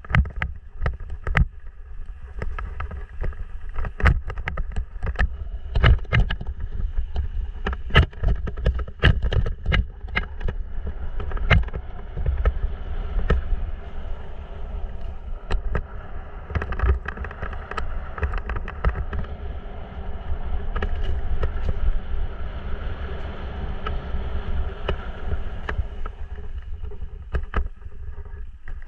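Mountain bike riding down a rough dirt singletrack: a steady low rumble of the tyres and wind on the microphone, with frequent sharp clatters and knocks as the bike hits bumps and roots.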